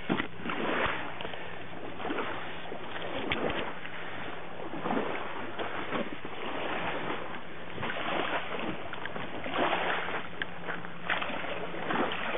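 Footsteps of a person in aqua socks wading into shallow tidal water, sloshing and splashing, with a louder step roughly every second.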